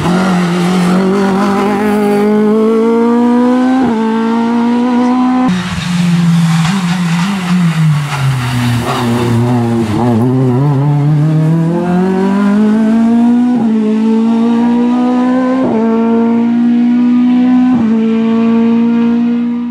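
Race-modified first-generation VW Scirocco hillclimb car at full throttle, its engine revs climbing and snapping down at quick upshifts. Midway the revs fall away as it slows for a bend, then build again through three more upshifts about two seconds apart.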